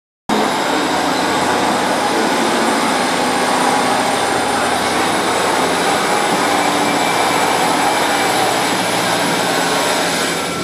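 A GWR Hitachi Intercity Express Train (Class 800-series) running in along the platform, with steady train running noise and faint high steady whines over it. The sound cuts in suddenly just after the start.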